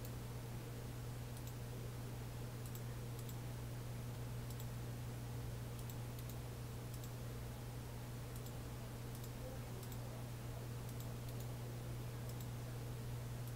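Faint computer mouse clicks, scattered and irregular, over a steady low electrical hum on the microphone.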